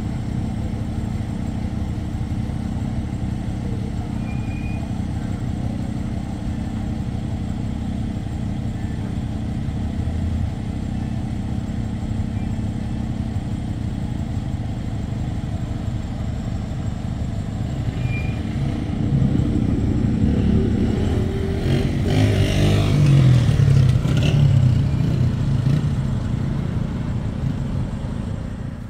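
A motor vehicle's engine running with a steady low hum; about two-thirds of the way through a vehicle engine grows louder, peaks, and fades again near the end as it passes close by.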